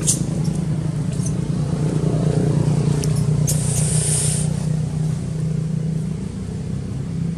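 A steady low engine hum, with a few brief high clicks and a short hiss about three and a half seconds in.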